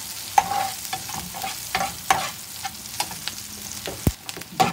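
Sliced onions, garlic and green chilli frying in oil in a frying pan, sizzling steadily, just starting to brown, while a spatula stirs them with irregular scrapes and taps against the pan; one sharper knock about four seconds in.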